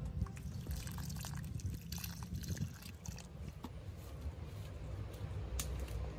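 Water poured from a metal jug onto a plant and soil, splashing and dripping, with many small irregular drips and patters.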